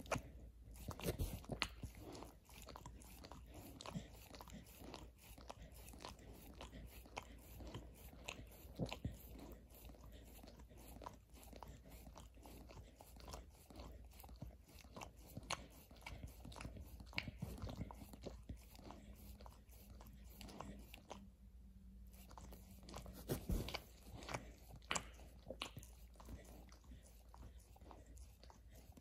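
A border collie crunching and chewing something hard, a steady run of irregular crunches with a louder flurry about three quarters of the way through.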